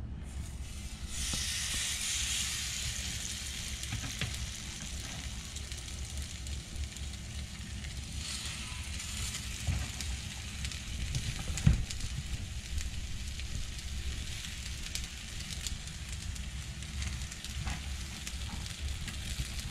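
Batter-coated perilla leaves frying in hot oil in a frying pan: steady sizzling that starts about a second in and swells again partway through. One sharp knock comes about two-thirds of the way through.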